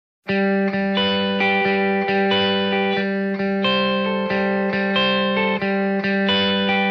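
Instrumental background music starting abruptly after a moment of silence: a plucked-string melody over a steady held low note.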